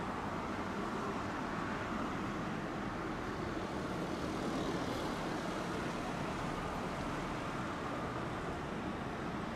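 Steady running noise heard from inside a Tosaden streetcar, with road traffic passing on both sides; it swells slightly about halfway through.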